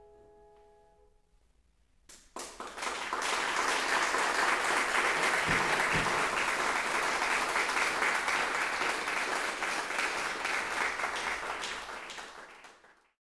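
The last piano chord dies away, then about two seconds in an audience applauds, the clapping fading out near the end.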